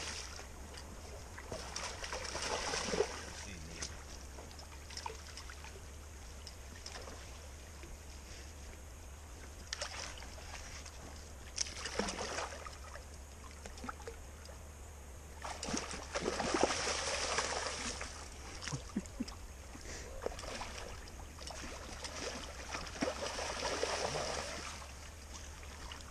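Shallow water splashing and sloshing in irregular bursts, loudest around a third of the way in and again near the two-thirds mark, over a steady low hum.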